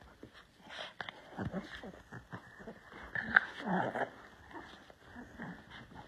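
Two dogs play-fighting on bedding: irregular scuffling and short dog vocal noises, loudest from about three to four seconds in, with one sharp click partway through.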